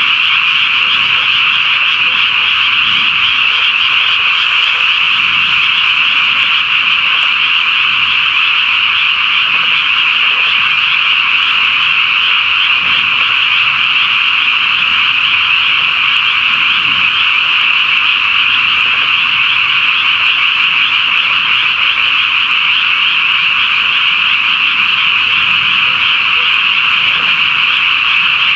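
Dense chorus of many frogs calling at a pond, merging into a steady, unbroken high-pitched drone.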